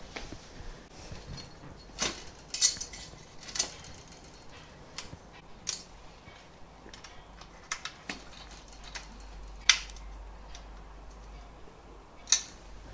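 Aluminium V-slot extrusion and its fittings clinking and clicking as a crossbar rail is fitted and fastened to a frame leg. There are scattered sharp metallic clicks, the loudest about ten seconds in and another near the end.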